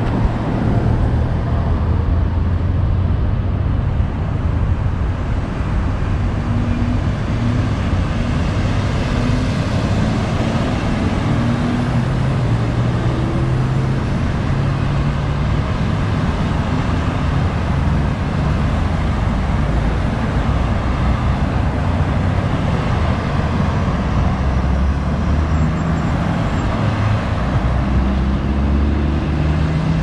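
Road traffic: cars and SUVs driving past, a steady mix of engine hum and tyre noise with a low rumble.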